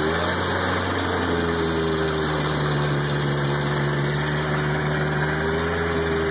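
Vehicle engine running steadily, its pitch dipping slightly about a second in and rising a little near the end.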